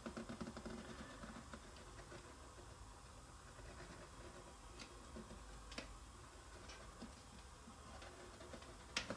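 Faint, quick scratching of a pencil on paper in the first second and a half, then only a few faint, light ticks.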